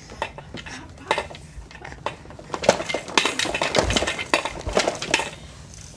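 Plastic toys on a baby's activity saucer being banged and rattled: a quick run of clacks and clinks, busiest and loudest in the second half.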